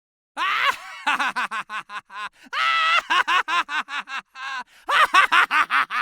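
High-pitched cartoon character voice snickering: three runs of quick, short giggling syllables, each opening with a longer held note, with a short pause between the second and third run.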